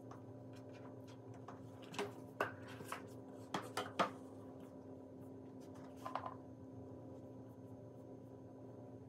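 An iPad in a folio case being handled and closed on a desk: a run of light taps and knocks about two to four seconds in, the loudest near four seconds, and a smaller clatter about six seconds in, over a steady faint hum.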